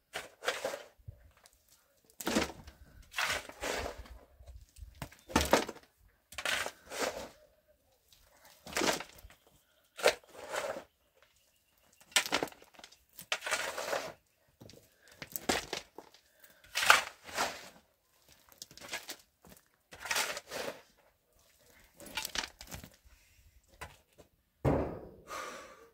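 A steel shovel scraping into dry soil and tipping loads into a metal wheelbarrow, a gritty scrape and thud roughly once a second. A heavier thud comes near the end.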